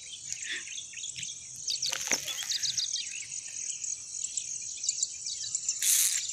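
Open-grassland chorus: insects trilling steadily with many small birds chirping in quick, high notes. A brief rush of noise comes near the end.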